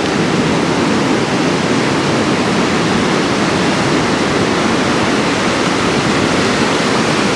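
Steady rushing noise of ocean surf breaking on a beach.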